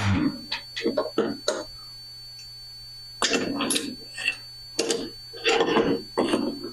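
Irregular clanks and knocks of steel parts being handled, coming in three clusters, over a faint steady hum.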